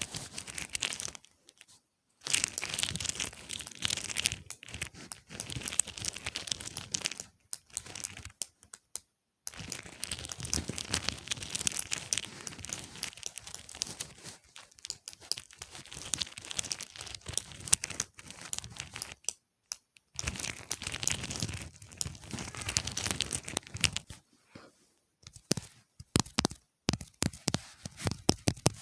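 Close-miked ASMR brushing: dense scratchy crackle in bursts of a few seconds with short pauses. Near the end it gives way to separate sharp taps or clicks.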